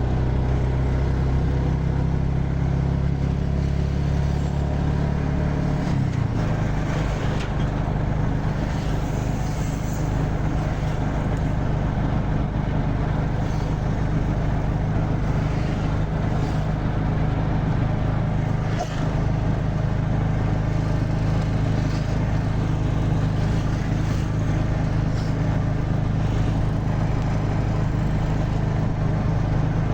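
A road vehicle's engine and road noise while driving: a steady low drone that drops to a new pitch about six seconds in, then holds steady.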